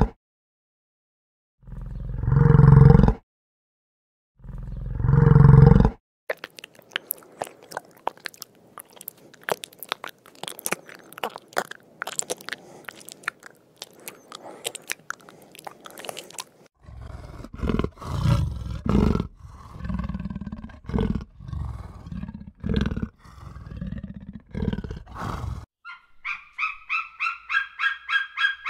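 Yak grunting, two long, deep calls in the first few seconds, followed by a long stretch of fine crackling and crunching typical of a garden snail rasping at leaves. Near the end, irregular low thuds give way to a fast rhythmic run of high calls, about three a second, from a bird.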